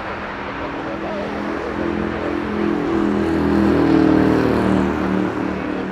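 Aircraft engines passing by, swelling to their loudest about four seconds in and then fading.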